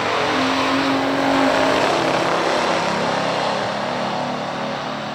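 Two V8 muscle cars, a 1969 COPO Chevelle with its 427 and a 1971 Buick with its 455, running at full throttle side by side down a drag strip. The sound is loudest about a second and a half in, then slowly fades as the cars pull away.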